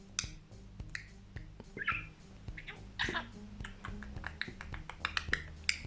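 Budgerigar chattering: a quick, irregular run of short clicks and brief chirps, some sliding in pitch.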